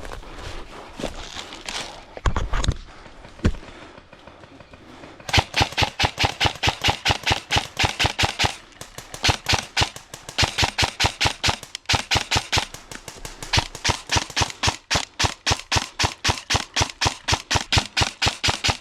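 Airsoft replica firing a long string of rapid, evenly spaced shots, about four a second, starting about five seconds in, after a few scuffs and knocks.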